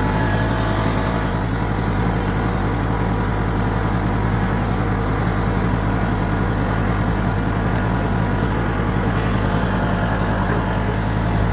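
John Deere 100 Series riding lawn mower's engine running at a steady speed as the mower drives along.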